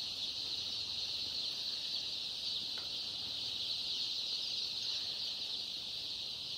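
A dense, steady chorus of peeping from thousands of two- to three-day-old layer chicks.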